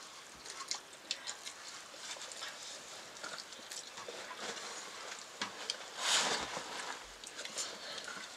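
Children eating rice with their hands from steel plates: scattered small clicks and scrapes of fingers and rice on the plates, with chewing. A short breathy rush about six seconds in.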